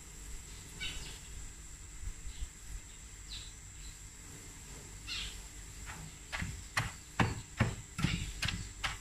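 A hand brushing and pushing cassava leaves around in a large mortar, a few soft rustles. Then, about six seconds in, a pestle starts pounding the leaves: even thuds, about two to three a second.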